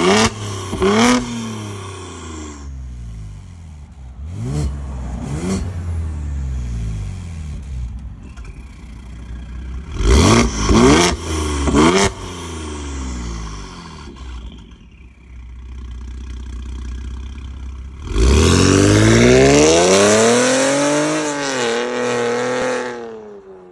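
Ford Explorer ST's 3.0-litre twin-turbo EcoBoost V6 through a custom exhaust with the exhaust valve open: a series of short sharp revs at standstill, then a long loud pull as the car accelerates away, the pitch climbing, dipping at a gear change and climbing again before fading.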